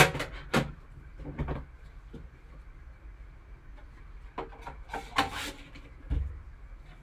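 Trading-card boxes and lids being handled with gloved hands: a few short knocks and scrapes in the first second and a half, a cluster of rubbing and scraping around five seconds in, and a soft thump a little after six seconds as a box is set down.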